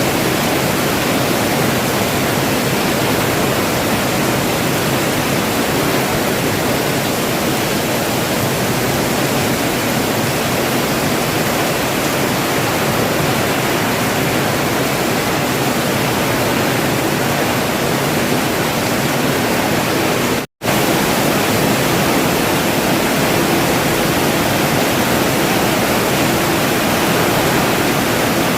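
Rain falling steadily, an even hiss with no break in intensity. The sound cuts out for a split second about twenty seconds in, then resumes unchanged.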